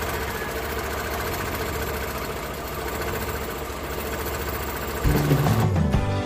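Suzuki F6A carbureted three-cylinder engine idling steadily just after a cold start, still cold and warming up. Music comes in about five seconds in, louder than the engine.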